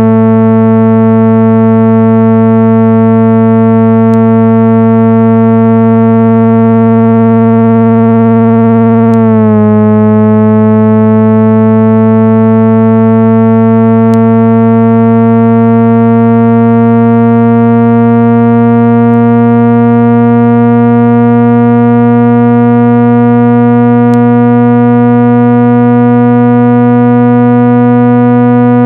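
Loud, steady low synthesized buzzing tone with many overtones, played to shake dust out of a phone speaker. About nine seconds in the pitch drops suddenly, then slowly rises again.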